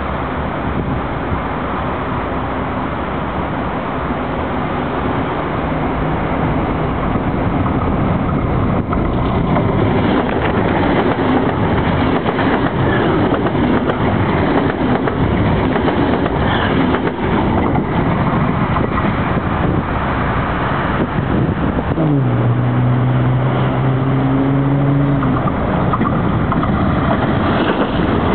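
Bombardier VLocity diesel multiple unit passing at speed on the track right beside the bridge: loud, steady rumble and wheel noise that builds as it arrives, with its slipstream buffeting the microphone. A low steady tone sounds for about three seconds near the end, as a Siemens electric suburban train passes.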